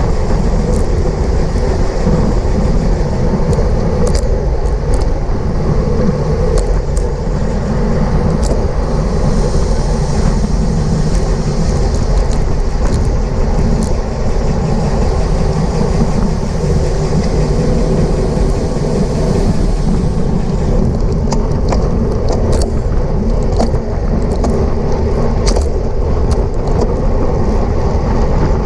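Wind rushing over a bicycle-mounted camera's microphone at race speed: a loud, steady rumbling noise, with a few faint clicks.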